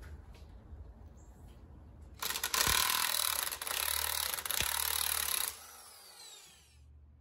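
A power tool run hard in two bursts lasting about three seconds in all, then winding down with a falling whine.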